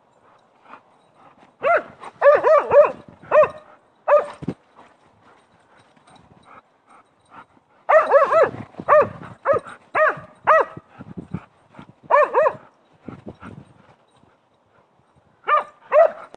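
A dog barking repeatedly in short, high-pitched barks. The barks come in three runs: a handful early on, a longer run in the middle, and two close together near the end.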